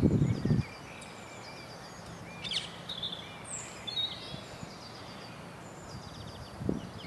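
Small birds chirping and trilling over steady outdoor background noise. A spade digging into soil makes a loud crunching scrape in the first half-second and a short one again near the end.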